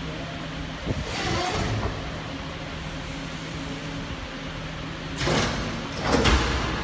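Hydraulic tube hydroforming press running with a steady hum from its hydraulic system. Short hisses come about a second in and twice near the end, as fluid or pressure is let through the valves.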